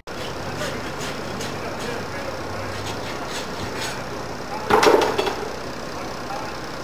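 Farrier's hoof rasp scraping over a horse's hoof in a series of light strokes, with a louder burst of sound about five seconds in.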